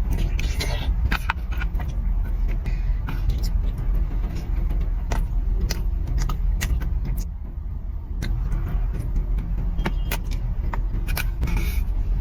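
Close-miked eating sounds: many sharp clicks and crunches, of chewing and utensils, over a steady low rumble.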